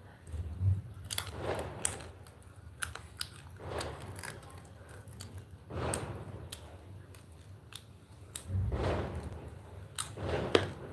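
A person biting and chewing close to the microphone: scattered sharp clicks and small crunches with a few soft duller sounds between.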